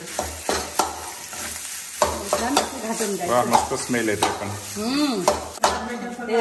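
A steel spatula stirring boiled, squeezed bamboo shoots into a mustard-seed, garlic and chilli tempering in a steel kadhai, scraping the pan in repeated strokes while the food sizzles lightly. A wavering pitched sound rises and falls in the middle.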